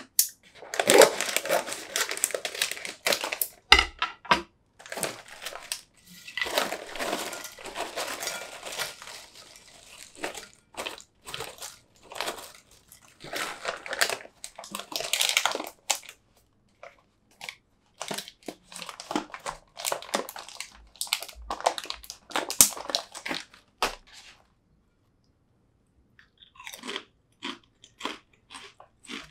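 Scissors cutting open a plastic potato-chip bag, the bag crinkling as it is handled, then potato chips pouring and clattering into a ceramic bowl in dense crunchy crackles. After a short quiet pause near the end come a few light crackles of chips being touched.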